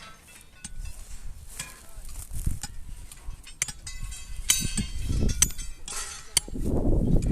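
Scattered metallic clinks and knocks, several ringing briefly, coming more often from about four seconds in, with low rumbling swells near the end.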